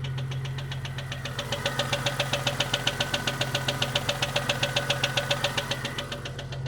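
1998 Jeep Cherokee XJ's 4.0-litre inline-six running with a rapid, even ticking knock of about six to seven a second, louder from about a second and a half in. The noise persists after the lifters were replaced, and the owner says it doesn't sound like rod knock or piston slap.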